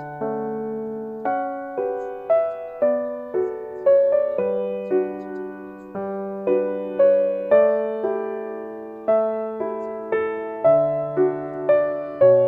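Gentle, slow background music played on piano: single struck notes and soft chords that ring and fade one after another.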